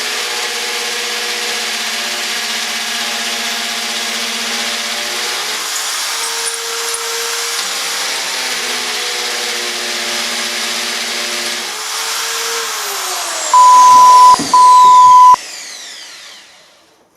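Wickes 1050 W corded hammer drill running at a steady speed, then switched off and winding down with a falling whine. The keyless chuck is not holding the drill bit in place. Partway through the run-down come two loud, steady single-pitch beeps, about a second each.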